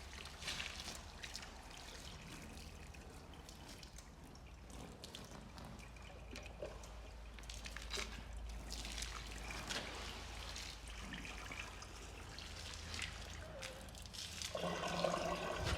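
Hot water poured from a kettle over a frozen water pipe to thaw it, trickling and dripping. A louder, steady sound with a low hum sets in near the end.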